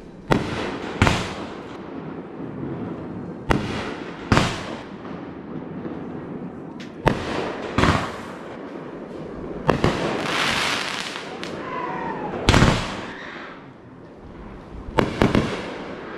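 Consumer fireworks cake firing shot after shot: about ten sharp bangs at uneven intervals. There is a stretch of crackling sparks a little past the middle, and the loudest, longest bang comes about three quarters of the way through.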